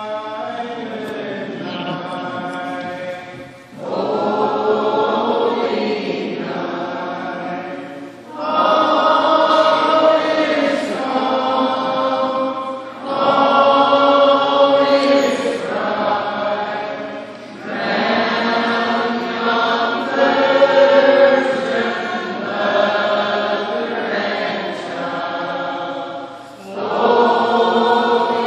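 Mixed choir of men's and women's voices singing together in long sustained phrases, with a short pause for breath every four to five seconds.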